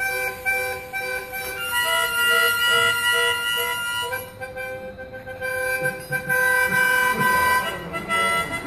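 Music on a wind instrument: long held notes that change pitch every second or two, dropping in level briefly around the middle, with a few low knocks near the end.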